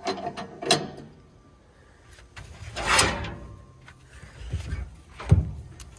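A box-end wrench straining on a stuck, rust-bound threaded metal fitting. It makes a scraping creak about halfway through and a sharp metal clunk near the end.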